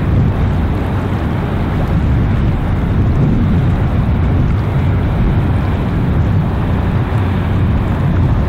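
Steady low rumble of boat diesel engines on the river, mixed with wind on the microphone.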